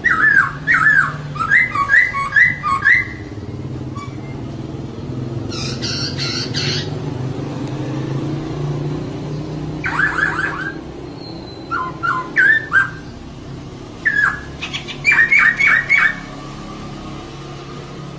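Female poksay (laughingthrush) calling in five bouts of quick, repeated chirping notes, one of them a harsher chatter. A low steady hum runs underneath.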